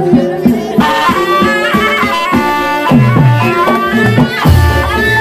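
Live Javanese gamelan music accompanying an ebeg (kuda lumping) dance. Metal gamelan keys ring steady notes over kendang drum strokes that drop in pitch, and a gliding melody line enters from about three seconds in.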